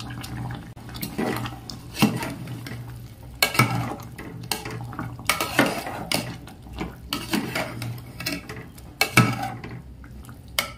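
A metal ladle stirring kofta curry in a metal cooking pot, with scattered clinks and knocks against the pot's side, the loudest about two seconds in and near the end.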